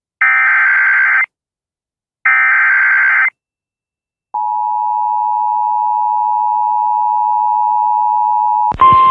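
Emergency Alert System header: two bursts, each about a second long, of warbling SAME digital data tones, then the two-tone EAS attention signal held steady for about four seconds, announcing an incoming severe weather warning. A burst of noise with a single tone cuts in near the end.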